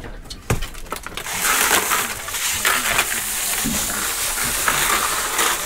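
Crushed ice poured from a plastic bucket onto conger eels in a plastic fish box: a continuous gritty rattle of ice pieces that starts about a second in, after a single knock. The eels are being iced down to keep them cool for market.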